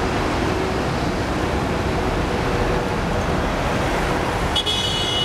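Cars of the E193 East-i D inspection train rolling past close by on the curve, a steady rumble of wheels on rail. Near the end a high, shrill steady tone starts suddenly.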